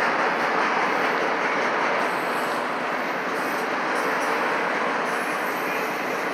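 Freight train autorack cars rolling past, a steady rolling noise of steel wheels on the rails.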